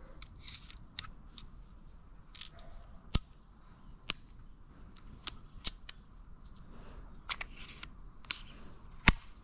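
Olympic-style airsoft target pistol being cocked by hand: a scattered series of sharp mechanical clicks and snaps from its swing-out cocking lever and latch, the loudest about three seconds in and near the end.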